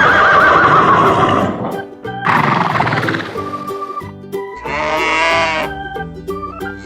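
Children's background music with farm animal sound effects laid over it: a horse whinnying with a wavering, falling pitch at the start, then further animal calls, one at about two seconds and a longer pitched one near five seconds.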